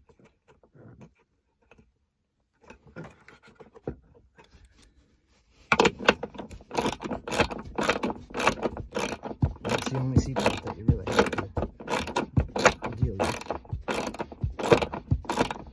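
Socket ratchet wrench clicking in a steady run of sharp clicks as it turns down an 18 mm seat-belt anchor bolt, starting about six seconds in after a few faint handling sounds.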